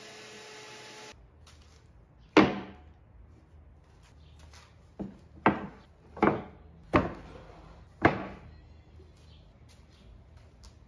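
Short sawn blocks of softwood set down and stacked on a workbench: six sharp wood-on-wood knocks, the first and loudest about two seconds in, the rest close together in the middle. At the very start a table saw runs for about a second and cuts off abruptly.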